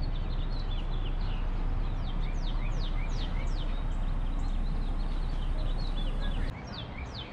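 Small birds chirping over and over, many short falling whistles, over a steady low rumble. The rumble drops off suddenly near the end.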